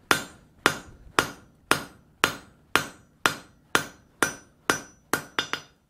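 Hand hammer striking a glowing steel bar on an anvil, steady blows about two a second, each with a short metallic ring. The smith is drawing the bar out to the parent bar's thickness.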